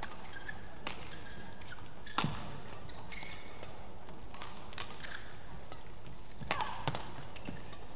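Badminton rally: sharp cracks of rackets hitting the shuttlecock every second or two, the hardest about two seconds in, with short squeaks of shoes on the court mat.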